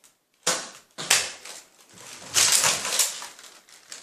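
Sharp plastic clacks and rattles from toy foam-dart blasters being handled and fired: two or three single knocks in the first second, then a longer clattering stretch a little past halfway.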